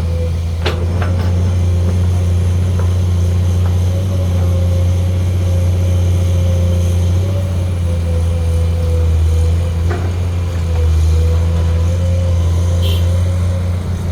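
Komatsu PC210 excavator's diesel engine running steadily with a low drone and a faint, slightly wavering whine above it, with a few short knocks near the start and again about ten seconds in.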